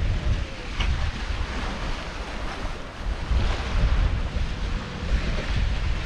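Sea water rushing and splashing past the hulls of a sailing catamaran under way, with wind buffeting the microphone in an uneven low rumble.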